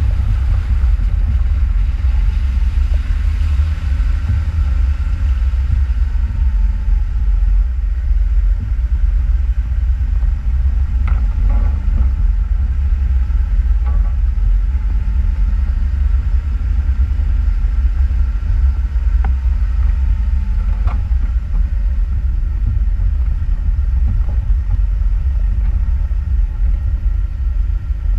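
Off-road vehicle driving, a steady low rumble with no clear changes in pace.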